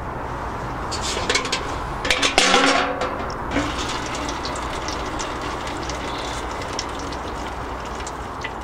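1937 Lister D single-cylinder stationary engine running steadily. A burst of metallic knocks and clatter comes between about one and three and a half seconds in, loudest around two and a half seconds.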